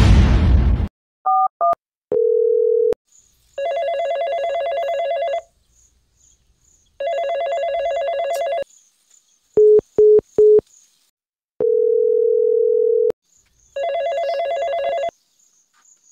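Mobile phone call tones: a couple of two-note keypad beeps, then a long steady beep. Three long rings of a ringing tone follow, each about one and a half seconds, with a run of three short beeps and another long steady beep between the second and third rings.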